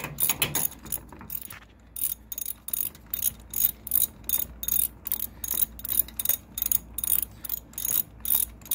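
Ratchet wrench clicking steadily, about three to four clicks a second with a brief pause near two seconds in, as it backs out the already-loosened top bolt of a Harley Dyna's rear engine mount.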